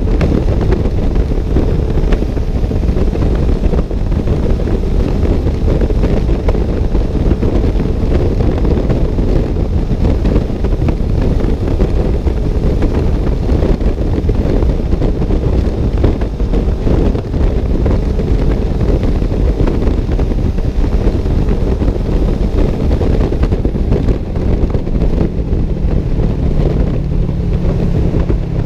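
Wind buffeting the microphone over the steady road rumble of a vehicle travelling at highway speed. A steady low hum joins in about five seconds before the end.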